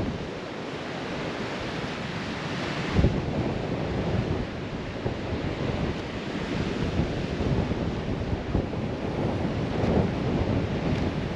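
Strong wind buffeting the microphone in gusts, over the wash of sea waves breaking on the beach. A sharp gust hits about three seconds in.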